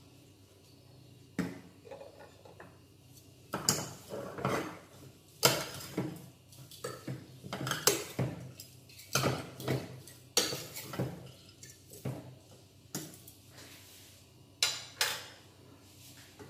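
A utensil scraping and clinking against a stainless steel pressure cooker as beef chunks are stirred together with spices, in irregular strokes.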